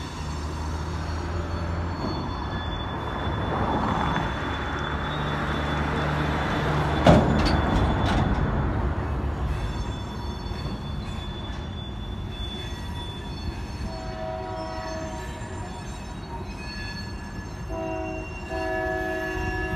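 Diesel freight locomotive horn sounding a multi-tone chord from about fourteen seconds in, blowing again louder near the end as the train approaches. Before that there is a low steady engine rumble and a single sharp bang about seven seconds in.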